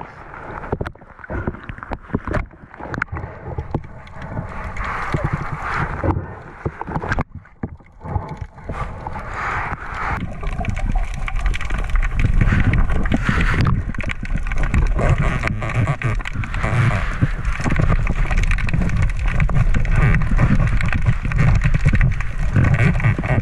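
Water sloshing and gurgling with many short knocks and splashes. It grows heavier and louder about halfway in.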